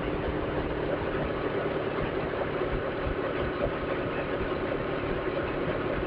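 Suzuki GS500E's parallel-twin engine running at a steady cruise, mixed with a steady rush of wind and road noise, heard through a microphone inside the rider's helmet.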